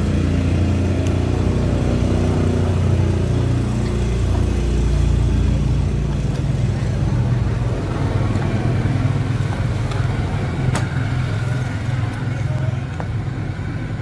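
Steady low engine-like drone, with a few light clicks.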